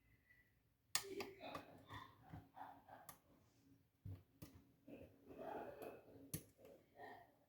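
Lock pick and tension wrench working the pins of a pin-tumbler challenge lock: faint scraping and rattling with several sharp clicks, the loudest about a second in.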